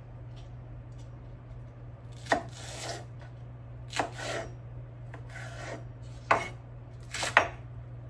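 Chef's knife cutting green onion and squash on a bamboo cutting board: about half a dozen single cuts, each a crisp knock of the blade into the board, spaced a second or so apart. A steady low hum runs underneath.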